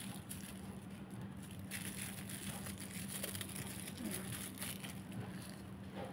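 Faint rustling and handling noise over a steady low hum, with a brief burst of rustling about two seconds in.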